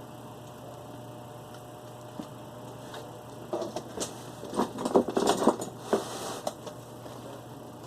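A burst of sharp clicks and rattles from hands handling the mechanism of a Beta VCR being repaired, over a steady low hum.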